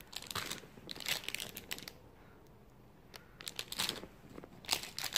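Close crinkling and rustling right at the microphone, in four short bouts with quiet gaps between.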